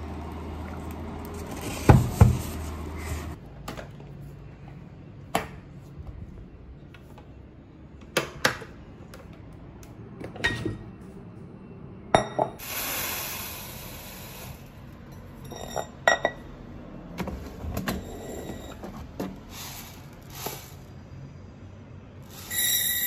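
Scattered knocks and clinks as a Zojirushi rice cooker and its metal inner pot are handled and set down, with a brief rustle near the middle. Near the end, uncooked rice grains start pouring from a plastic dispenser tray into the inner pot with a steady hiss.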